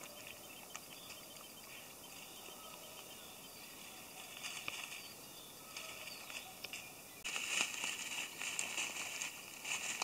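Footsteps rustling and crunching through dry grass and dead leaves, faint and scattered at first, then louder and denser from about seven seconds in.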